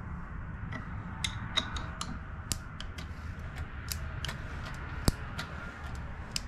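A box wrench turning a Honda CA160 twin's crankshaft over by hand at the points plate while the plug is watched for spark. It makes scattered light metallic clicks at an uneven pace, with one sharper click about five seconds in, over a low steady hum.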